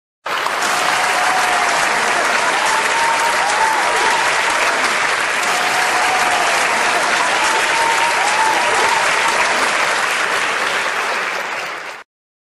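Large audience applauding steadily, a dense roar of clapping hands that cuts in at once and stops suddenly near the end.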